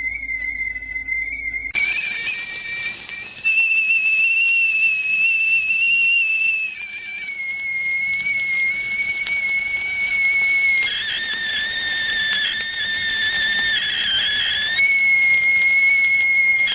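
Stovetop tea kettle whistling at the boil. It starts as one steady note, gets louder about two seconds in, then jumps between several steady pitches every few seconds, sometimes sounding two notes at once.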